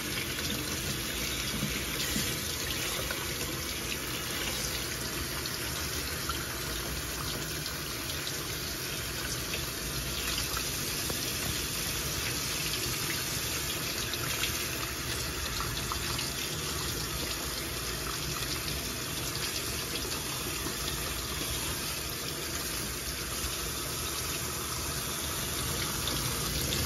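Kitchen tap running steadily, water splashing onto raw chicken pieces and a stainless steel sink tray as they are rinsed by hand.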